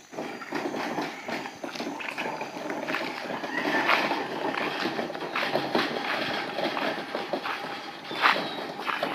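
Steel C-channel slide folding gate rolling along its track on its wheels as it is pushed, a continuous metallic rattling clatter with many small knocks.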